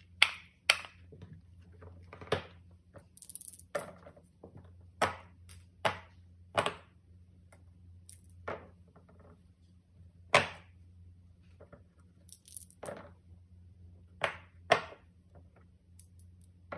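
Silicone pop-it fidget toys being handled and pressed, giving a dozen or more sharp pops and clicks at irregular intervals, with brief light rattles of dice shaken in the hand. A low steady hum runs underneath.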